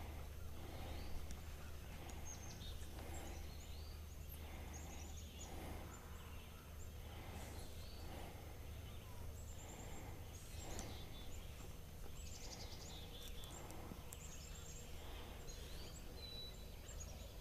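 Birds singing in the morning: many short high chirps and trills scattered through, over a steady low hum.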